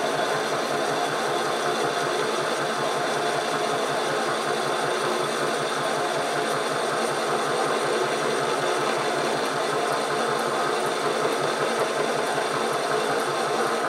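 SC2 mini lathe running with the tool cutting into a large aluminium workpiece: a steady machine whine with a fast, even hum underneath, unchanged throughout.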